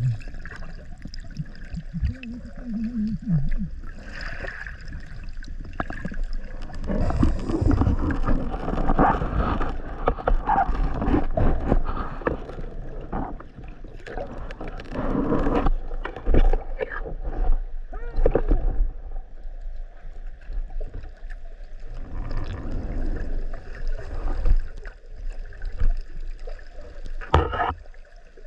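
Sea water sloshing and splashing in irregular surges, over a steady low rumble.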